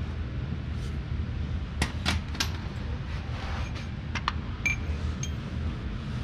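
Hand tools clinking against metal: several sharp clinks, a couple close together about two seconds in and more around four to five seconds, one ringing briefly. A steady low hum runs underneath.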